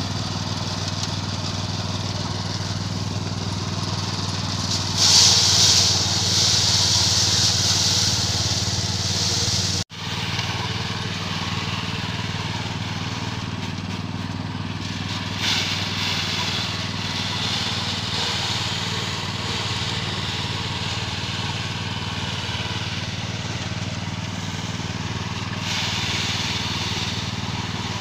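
Small single-cylinder petrol engine running steadily, driving a rice thresher. Louder hissing spells come and go, the loudest between about five and ten seconds in, as bundles of rice stalks are fed into the spinning threshing drum.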